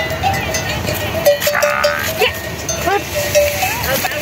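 Bells on a flock of sheep ringing and clanking, with sheep bleating several times.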